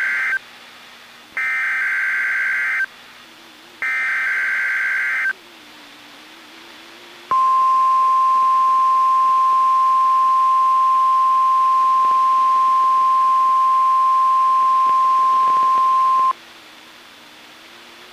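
NOAA Weather Radio weekly test signal: the end of one warbling SAME digital header burst and then two more, each about a second and a half long with short gaps. About two seconds later the steady 1050 Hz warning alarm tone sounds for about nine seconds and cuts off, leaving faint receiver hiss.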